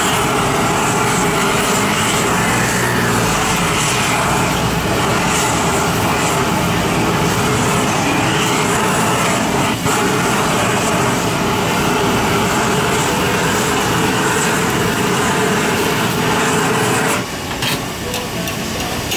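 Handheld gas blowtorch running with a steady, loud rushing hiss as its flame sears cubes of steak on a grill. It cuts off near the end.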